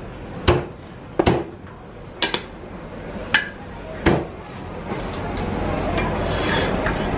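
Chinese cleaver chopping through crispy-skinned roast pork onto a thick wooden chopping block: about six sharp chops in the first four seconds, two of them in quick succession. Shop background noise grows louder in the second half.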